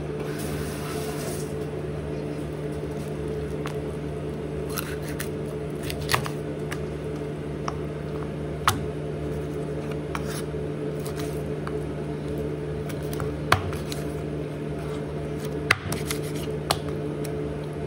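Chef's knife cutting through raw chicken and striking a plastic cutting board: irregular sharp knocks a second or more apart, with soft cutting noises between. A steady mechanical hum runs underneath.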